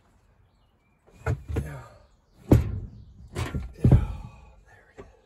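Heavy metal clunks and thuds, about five in a few seconds, the loudest two and a half and four seconds in, as a Logan lathe and its sheet-metal chip pan are shifted and lowered onto the floor in the back of a van.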